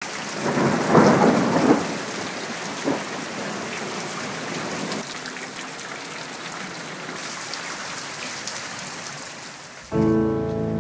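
Steady rain from a thunderstorm, with a clap of thunder swelling about a second in. Music starts just before the end.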